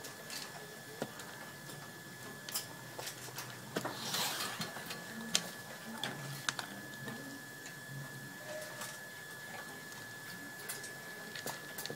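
Shetland sheepdog eating from a plastic basin: scattered clicks and crunches of chewing food and of food knocking against the bowl, with a louder rustle about four seconds in.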